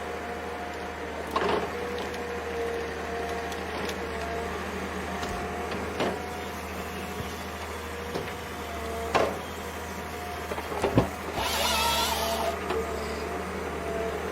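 Heavy construction machine running: a steady engine hum with a whine, broken by sharp knocks about four times and a short burst of hiss near the end.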